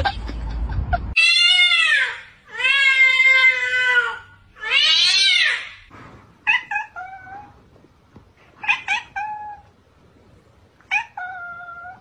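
Domestic tabby cat yowling: three long, drawn-out meows that rise and fall in pitch, followed by a few shorter meows.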